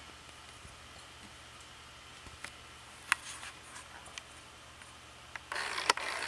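Quiet evening ambience with a faint steady low hum, broken by a few sharp clicks, the loudest about three seconds in. Near the end comes a short burst of rustling and clicking as the handheld camera is moved.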